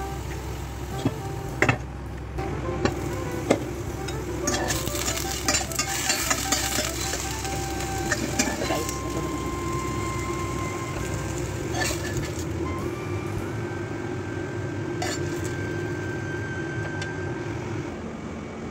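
Potato chunks sizzling in a stainless steel frying pan, with a metal spatula scraping and clicking against the pan as they are scooped out.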